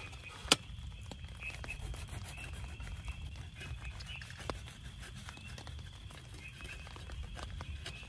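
Rain pattering on the tent, a steady low rumble speckled with small ticks of drops. A sharp knock about half a second in, and a lighter knock later as a knife slicing toast meets the wooden cutting board.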